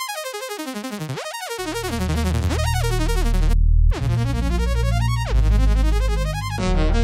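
Electronic music: fast synthesizer arpeggios sweeping down and up in pitch, joined by a deep bass line about a second and a half in, with a short break in the high notes around the middle.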